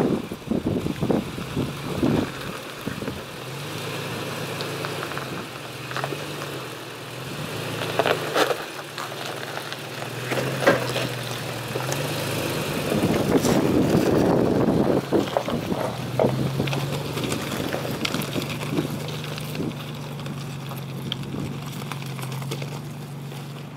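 Toyota Tacoma pickup's engine running at low speed as the truck crawls over a rocky trail, with its Toyo Open Country R/T tires crunching over gravel and rocks knocking and clicking underneath.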